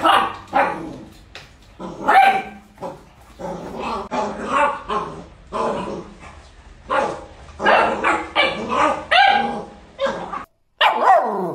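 Beagle puppies barking and yapping, many short high barks one after another. After a short break near the end, another dog gives a call that slides down in pitch.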